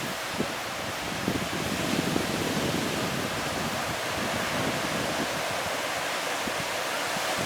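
Sea surf washing onto a beach with wind: a steady rushing noise that swells a little about two seconds in.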